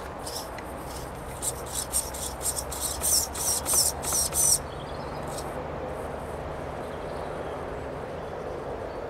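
Axial Honcho RC crawler's 35T brushed motor whining in a run of short throttle bursts, the pitch rising and falling, as the truck crawls up a rock; the bursts stop about four and a half seconds in.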